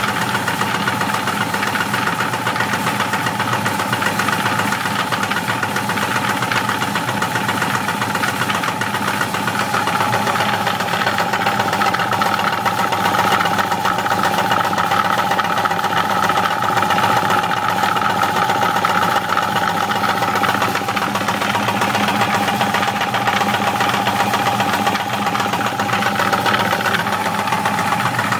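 An engine running steadily at idle, with a steady whine over the running noise that the owner wonders may come from worn bearings.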